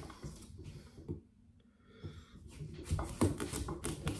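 A kitchen knife sawing through a watermelon's thick rind, with scraping strokes, a short pause about a second in, and then a fast run of crunching and crackling near the end as the melon starts to crack open.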